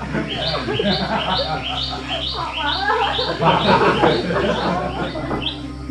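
Outdoor village sounds: a high, short rising chirp repeating about two to three times a second, thinning out near the end, over a jumble of lower animal calls or voices.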